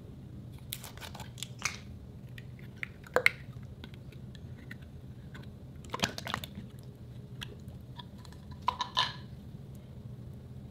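Short clusters of plastic clicks and crackles as a small bottle-shaped plastic slime container is handled and twisted open, four times, the sharpest snap about three seconds in.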